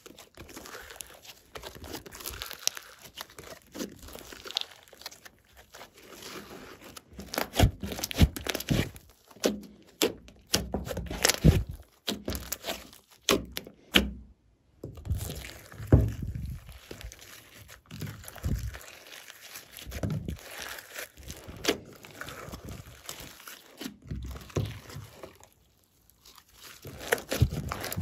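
Hands squishing, stretching and kneading glossy slime: a steady run of irregular sticky clicks, pops and crackles. There is a brief pause about halfway through.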